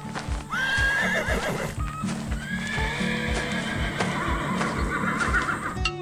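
Horses neighing, a short whinny about half a second in and a longer one from about two and a half seconds, over background music with a steady beat.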